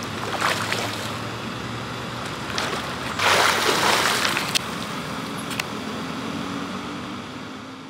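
Swimmer splashing through pool water, with a louder rush of splashing about three seconds in as the arms stroke on the back.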